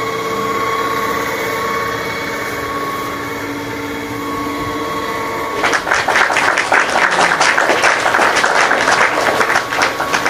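Electric pipe threading machine running with a steady motor hum. About six seconds in, the die head bites into the 2½-inch steel pipe and a loud, rapid chattering grind of thread cutting takes over until shortly before the end.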